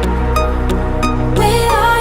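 Electronic pop music with a steady beat and held synth notes.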